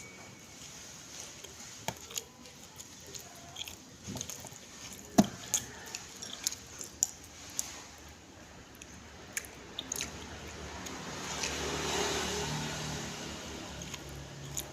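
A person eating spaghetti: quiet chewing with scattered sharp clicks, the loudest about five seconds in. A broad noise swells and fades about twelve seconds in.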